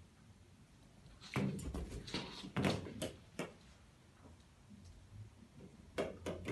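Irregular knocks and thumps: a quick flurry of about eight over two seconds starting a little over a second in, then two more close together near the end.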